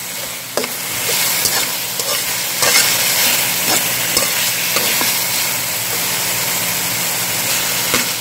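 Chicken, ginger, onion and wood ear mushrooms sizzling in a hot wok while a metal spatula stirs them, with repeated scrapes and clicks of the spatula against the pan.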